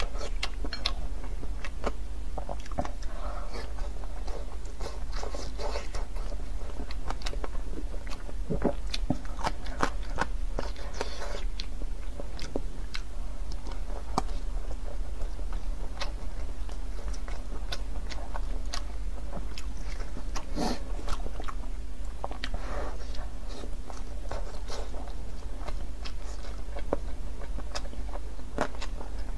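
A person biting and chewing soft thin-skinned steamed buns, with many short wet mouth smacks and clicks. A steady low hum runs underneath.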